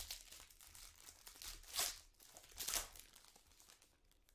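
Foil wrapper of a trading-card pack being torn open and crinkled, with louder crinkles at the start and about two and three seconds in, dying away near the end.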